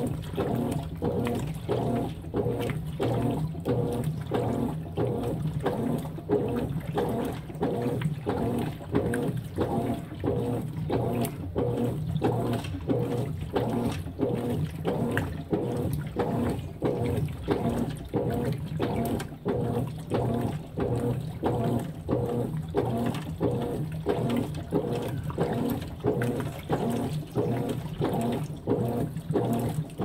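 Consul 16 kg top-load washing machine agitating a load of jeans in soapy water: rhythmic churning and sloshing, about two strokes a second, over a faint steady hum.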